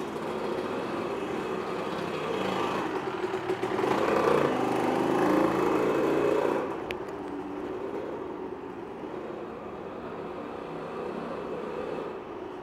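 Dirt bike engine heard from a camera mounted on the bike, ridden slowly at low revs. The throttle opens about four seconds in, making the engine louder for about two seconds before it eases back, and there is a single sharp click just before seven seconds.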